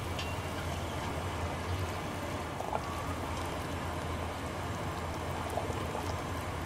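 Ginger and scallion water simmering in a stainless steel pot with sea cucumbers in it: steady bubbling and hiss, with a few small pops.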